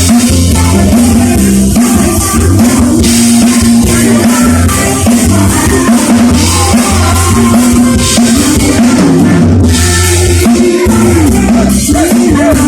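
Loud band music driven by a drum kit, with a bass drum beat and a repeating bass line under a melodic line.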